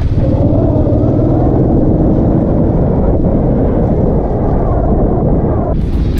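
Royal Enfield motorcycle engine running steadily while riding, a dense low rumble. Music comes in near the end.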